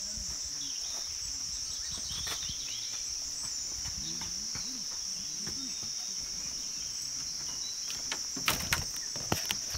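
Steady, high-pitched chorus of forest insects droning without a break. A few sharp clicks and knocks come near the end.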